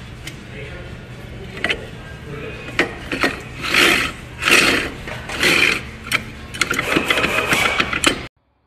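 Scored brake disc scraping against the caliper as it turns, in repeated rasping strokes about once a second that get louder and come closer together in the second half, over a steady low hum. The sound cuts off suddenly near the end.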